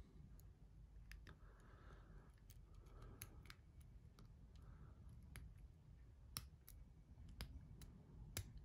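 Faint, irregular clicks and light scraping of a hook pick working the pins of a DESEO 6-pin euro cylinder lock held under tension, as the pins are lifted one by one.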